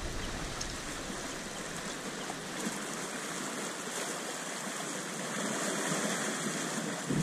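Sea water washing and fizzing against shoreline rocks, a steady rushing of water.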